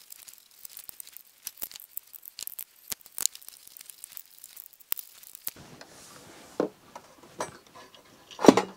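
Screws being turned out of a vintage tube signal generator's perforated steel cover plate with a screwdriver: a run of small clicks and scratchy ticks. Then the loosened metal panel shifts and scrapes, with a few knocks and one loud metallic clunk near the end.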